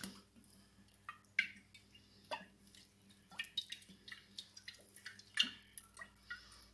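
Oil glugging out of a glass bottle as it is drizzled over a tray of shredded cabbage: a string of faint, irregular drips and plops, the loudest about five and a half seconds in.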